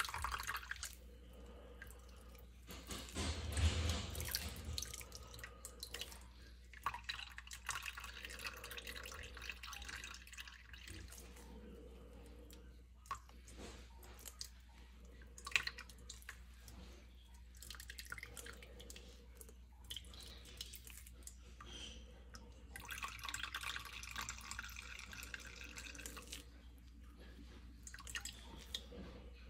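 Celery juice trickling and dripping from a stainless mesh strainer into a bowl while a metal ladle presses and scrapes the blended pulp through the mesh, with scattered sharp clicks and a louder burst of handling noise about four seconds in.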